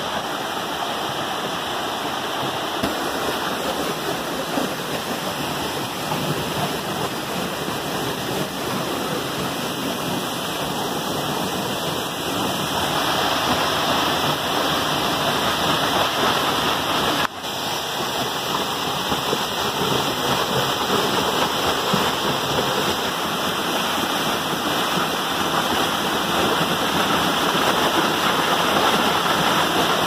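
Tall waterfall: a steady rush of falling water, a little louder from just before halfway, with a momentary dip just past halfway.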